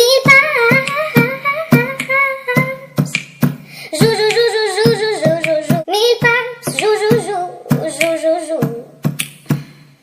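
Background music: a cheerful song with high singing over a steady beat.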